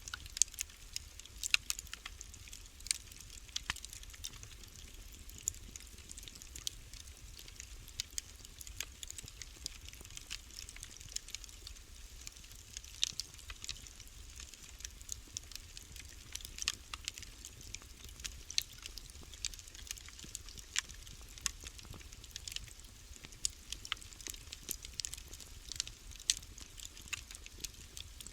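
Wood fire crackling in a fireplace: irregular sharp pops and snaps, bunched closely at times, over a steady low rumble of the burning.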